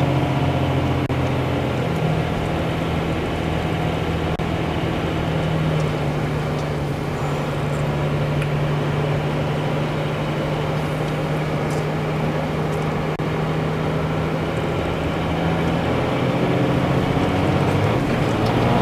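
Truck engine and tyre noise heard from inside the cab while driving: a steady drone whose pitch steps up about two seconds in and drops back down a few seconds before the end.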